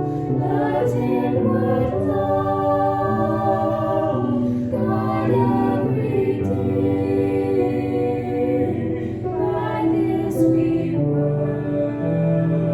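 Choir singing a hymn in chords, with long held notes.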